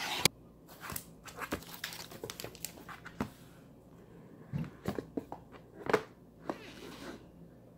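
Apple iPhone XS Max cardboard retail box being handled and its lid pulled off, with scattered light taps, knocks and short scrapes of cardboard against hands and the table.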